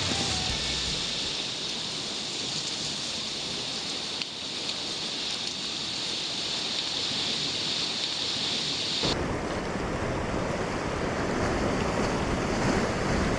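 Surf washing against a rocky shore, with wind on the microphone. About nine seconds in the sound changes abruptly to a heavier, deeper rush of wind and waves.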